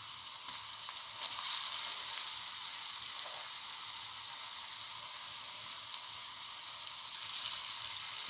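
Potato-chickpea fritter batter frying in hot oil in a pan: a steady sizzle that swells about a second and a half in and again near the end as fresh batter goes into the oil. A few light clicks sound over it.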